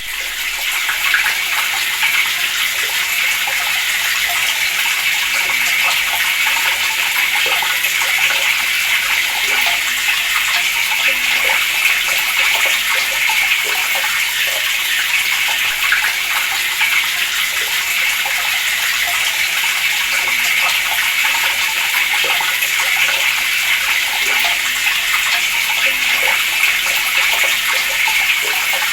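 Water running from a tap in a steady, splashing stream that comes up in the first second and then holds even.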